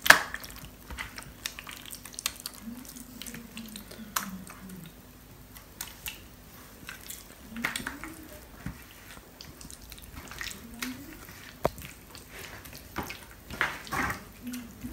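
Wet squelching and squishing of hands kneading raw chicken legs in a thick marinade in a stainless steel bowl, with irregular sharp clicks and slaps, the loudest right at the start.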